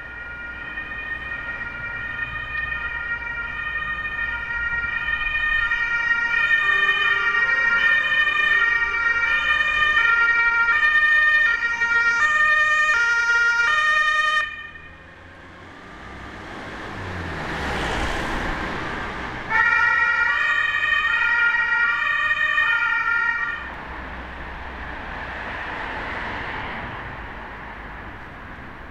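German two-tone emergency-vehicle siren (Martinshorn) alternating between two pitches. It grows louder as it approaches and cuts off sharply about halfway through. A vehicle then passes with a swelling and fading rush of traffic noise, the siren sounds again for about four seconds and stops abruptly, and another vehicle passes.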